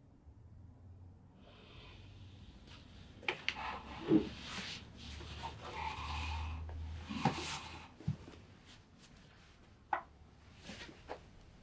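Cushioned wooden-legged stool being handled, set down and stepped onto: clothes and fabric rustling, with a few sharp knocks of the stool on the floor, the loudest about four seconds in.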